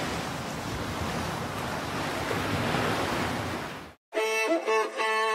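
Ocean surf, a steady rushing wash of waves, which cuts off suddenly about four seconds in as music begins.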